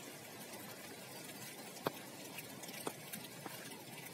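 Steady rain falling, an even hiss, with a few separate sharp taps of drops about two, three and three and a half seconds in.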